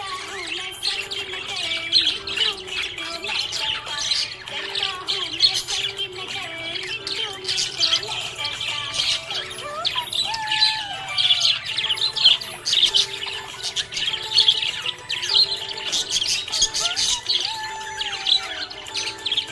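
Budgerigar chirping in a fast, continuous warble of many short, high chirps.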